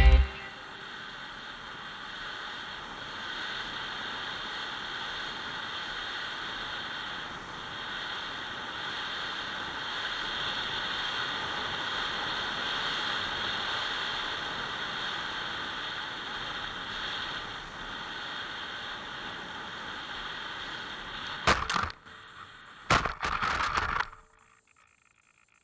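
Air rushing past an RC glider's onboard camera in flight, a steady hiss that swells and fades. Near the end come a sharp knock and a second of scraping and rustling as the glider touches down and skids into grass, then the sound cuts off.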